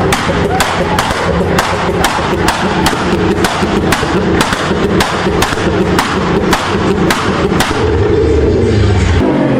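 Car engine held against an ignition-cut rev limiter, firing a steady string of sharp exhaust bangs, about three a second, over the engine's drone. The engine note grows louder near the end.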